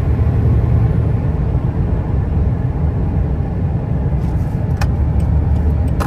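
Lorry cab driving noise: a steady low drone of engine and tyres on the road, with a few light clicks near the end.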